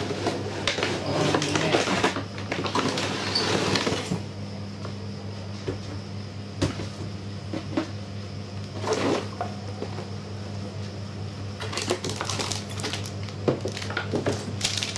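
Cardboard box and plastic packaging being handled while an RC crawler truck is lifted out: rustling and sliding for the first few seconds, then scattered light knocks and clicks, with rustling again near the end. A steady low hum runs underneath.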